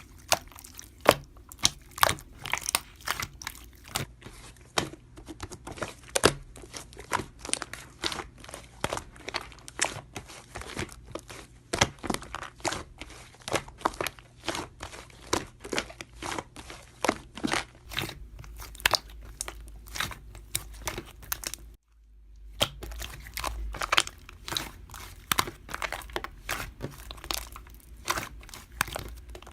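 Slime being squished and poked by hand, giving irregular crackling clicks and pops several times a second, with a brief break a little past two-thirds through.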